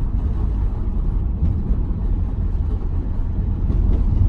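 Steady low engine and road rumble inside a car's cabin while it is being driven.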